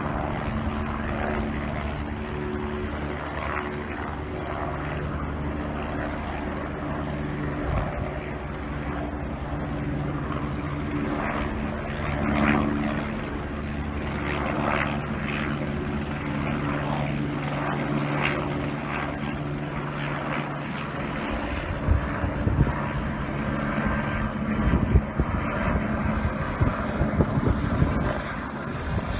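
Helicopter running nearby: a steady droning hum with an even engine and rotor tone. About two-thirds of the way through, the tone fades and irregular gusty rumbles take over.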